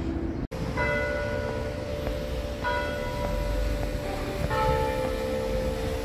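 Church bell tolling: three strokes about two seconds apart, each ringing on into the next.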